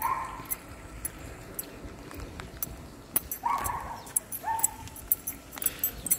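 Bernedoodle whining, three short high whines a few seconds apart, with light clicking between them.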